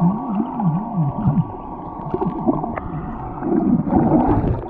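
Underwater sound picked up by a submerged camera: water gurgling and moving around the microphone, with a low muffled warbling tone that rises and falls about four times in the first second and a half. A louder stretch of rough gurgling comes near the end.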